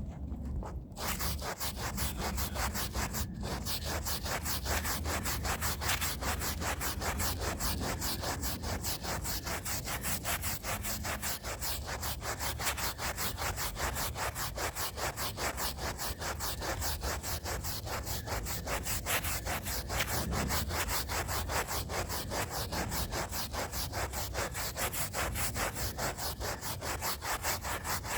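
Stiff hand brush scrubbing rug fibres in rapid, steady back-and-forth strokes, several a second. The scrubbing starts about a second in and pauses briefly a couple of seconds later.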